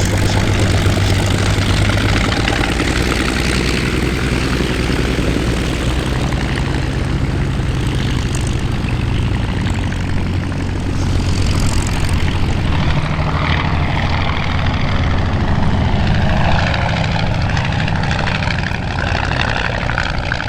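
Piston-engined propeller aircraft flying past, its engine drone steady, with the pitch shifting a few times as it moves through the display.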